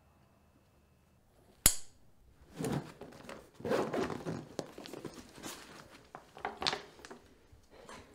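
A single sharp snap about one and a half seconds in, then rustling and scraping of fabric and straps as a backpack is fitted onto someone's shoulders, with a few brief sharper rasps.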